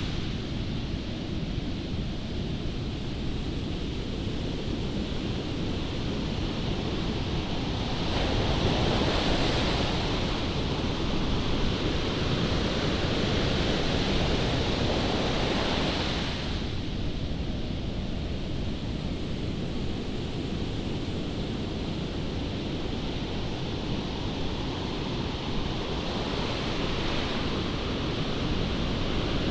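Strong wind buffeting the microphone over the steady rush of ocean surf. It swells louder for several seconds in the middle, then eases.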